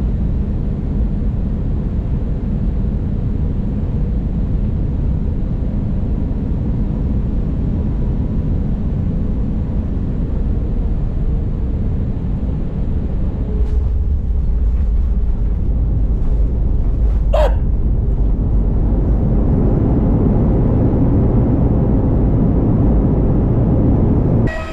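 Airliner cabin noise: the steady low rumble of the jet engines and airflow, growing louder about halfway through. One short, sharp click-like sound about two-thirds of the way in.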